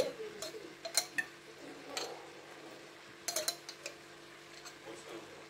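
Metal spoon clinking and scraping against a glass jar while thick curry paste is scooped out. Scattered sharp clinks, with a quick cluster a little after three seconds in.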